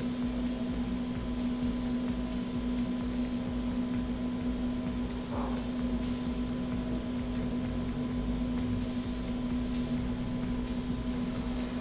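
Steady electrical hum with a low rumble and faint hiss.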